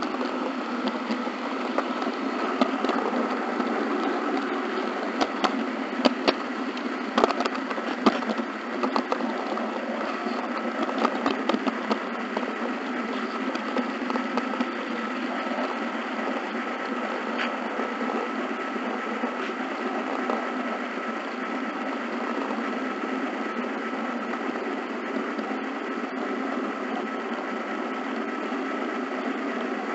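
HO scale model train running along the track: a steady whirring of the small motor and wheels on the rails, with a run of sharp clicks about 5 to 12 seconds in as the wheels cross turnouts and rail joints.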